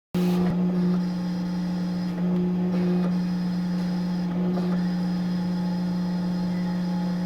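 Industrial paper cutting machine running with a steady electric motor hum, cutting in abruptly a moment in.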